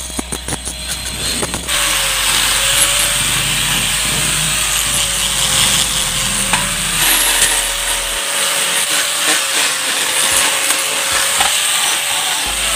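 An electric angle grinder grinds down the welded seams of a steel mold: a steady, loud grinding hiss over the motor's whine. For about the first two seconds there is the crackle of arc welding, and the grinder comes in abruptly after it.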